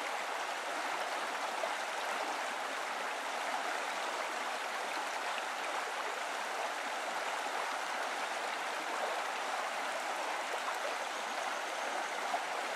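Steady rushing of running water, like a stream, even and unbroken throughout.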